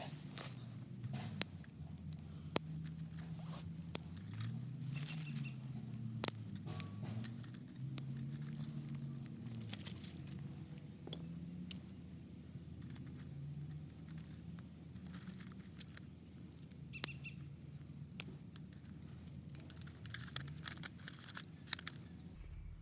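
Small dry twigs clicking and clattering against the metal as they are dropped into a stainless steel wood-burning camp stove, with a quicker run of clicks near the end. A low wavering hum sits underneath.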